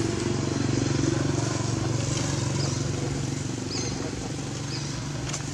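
A motor vehicle's engine running with a steady low hum, loudest about a second in and then slowly fading, as of a vehicle passing by. A few short high chirps sound in the second half.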